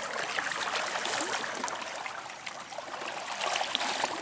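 Canoe paddle strokes: water splashing and trickling off the paddle blade and along the hull.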